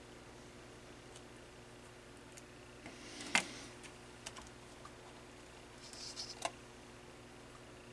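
A few scattered clicks and taps from test probes and parts being handled on an electronics workbench, the sharpest about three seconds in and a small cluster near the end, over a steady faint low hum.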